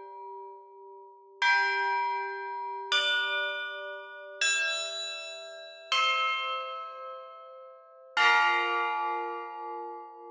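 Bells struck one at a time, each ringing on and fading slowly under the next. Four strikes come about a second and a half apart, then after a longer pause a fifth, the loudest, about eight seconds in.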